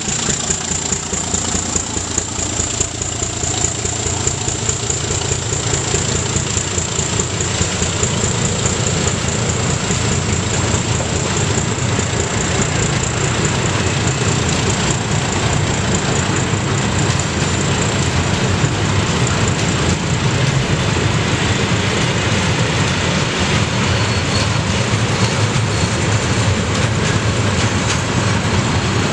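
Freight train rolling steadily past on the rails, the diesel engines of its two class 752 locomotives pulling away ahead while the wagons' wheels rumble and clatter by. The rumble grows a little louder after about six seconds.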